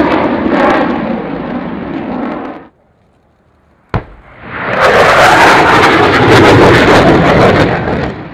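Roar of RAF Tornado GR4 jets, fading out after about two and a half seconds. After a second of near silence comes a sharp crack, then a swelling roar that stays loud for several seconds: the jets' run over the airfield mixed with pyrotechnic explosions of a simulated ground attack.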